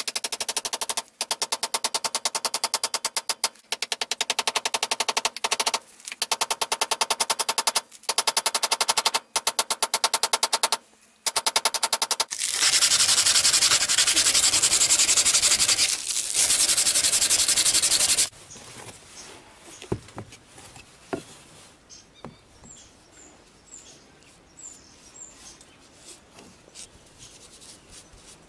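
Quick runs of hammer taps on a steel wedge being driven into the top of a hatchet's wooden handle through the eye of the head, with a metallic ring, stopping briefly several times. About twelve seconds in the tapping gives way to about six seconds of steady rubbing like sanding, then only faint handling clicks.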